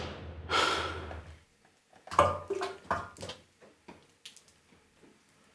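A brief rushing whoosh, then a few short soft squishes and clicks of hands squeezing and pitting sticky dates over a container, fading to faint sparse ticks.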